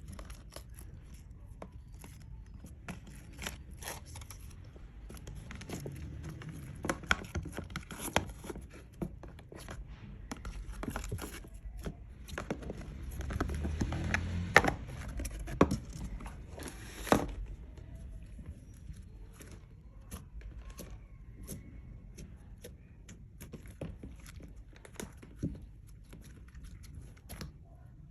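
Clear slime being kneaded and pressed by hand, making many small sticky clicks and pops, busiest in the middle and sparser near the end.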